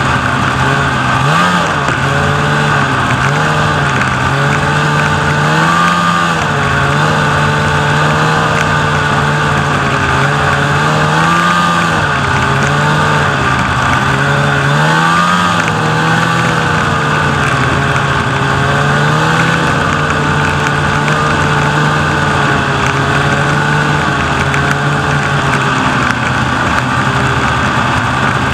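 Snowmobile engine running steadily at trail speed, its pitch rising and falling a little several times as the throttle eases and opens.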